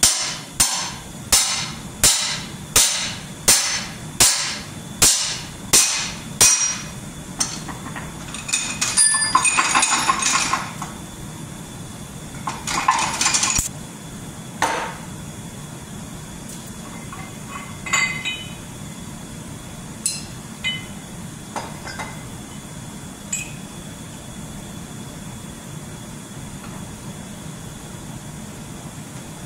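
Hammer blows on a long steel drift bar run through an IH 1086 tractor's rear housing, about ten sharp metal strikes at a little over one a second, driving the shaft and gears out. After that, metal clattering and scraping as the gears come free and are handled, then a few scattered clinks of parts being set down.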